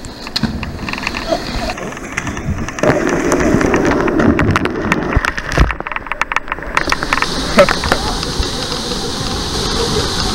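Water splashing and churning in a plunge pool, with people shouting and calling out. From about seven seconds in, the steady rush of a waterfall.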